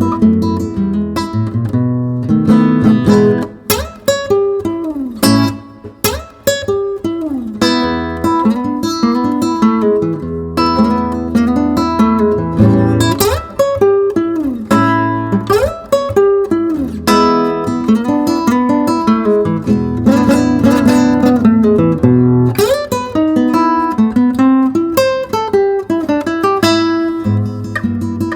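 Background music: plucked and strummed guitar with bending notes, played continuously.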